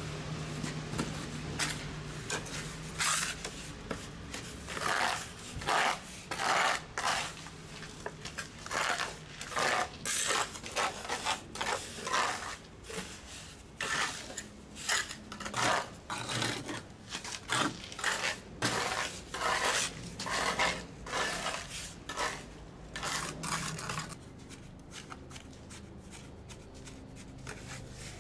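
Hand trowel scraping and smoothing wet cement mortar along the joint at the foot of granite steps, in repeated short strokes about one a second. The strokes stop about four seconds before the end.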